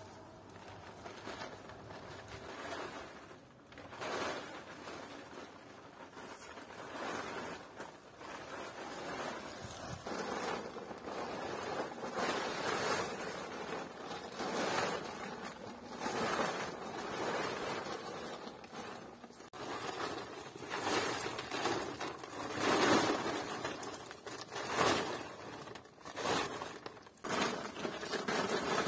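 Irregular rustling and scraping noises, swelling and fading every one to two seconds.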